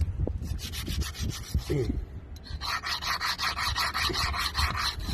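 Disc brake pad being rubbed back and forth on the ground, a scraping rasp in quick strokes that pauses briefly about two seconds in, then resumes denser and more continuous. The pad is being ground down to remove the metal part that was rubbing the brake disc and causing the front-wheel squeal.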